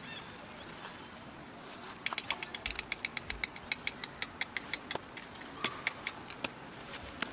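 An animal's chirping call: a fast run of short, sharp chirps, about seven a second, starting about two seconds in, then slowing into a few scattered chirps.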